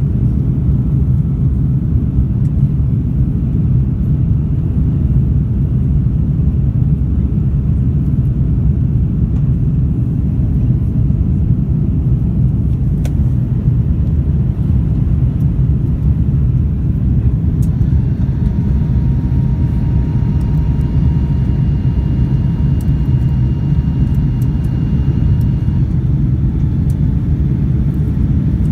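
Cabin noise inside an Airbus A330-300 climbing after take-off: a steady low rumble of engines and rushing air. For several seconds from about two-thirds of the way in, a faint steady whine sits above it.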